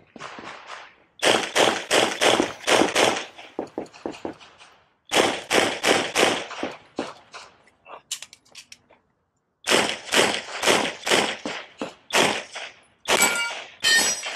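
Pistol shots fired in rapid strings of about ten shots each, in three bursts separated by short pauses, each crack trailing a brief echo. Near the end, steel targets ring as they are hit.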